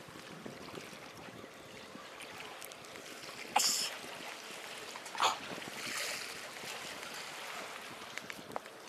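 Sea water washing and lapping against concrete tetrapods, a steady wash with two short sharp sounds about three and a half and five seconds in.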